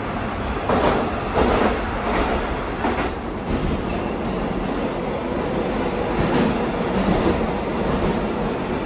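Rusich (81-740/741) metro train running, heard inside the car: a steady rumble with a run of rail-joint clatter in the first few seconds, then a faint high wheel squeal in the second half.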